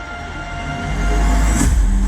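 Fireworks-show soundtrack music building up: sustained tones over a deep low rumble that swells and gets louder about a second in.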